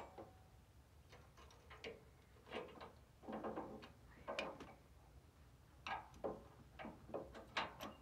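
Scattered faint clicks and clanks of metal parts and tools being handled on a steel sawmill trailer frame, in short irregular bursts with pauses between.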